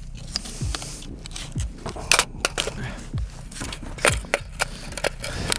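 Irregular metallic clacks and rattles of a mud-caked HK MR556A1 rifle's action being worked by hand: charging handle and bolt being yanked to clear a bolt-override malfunction.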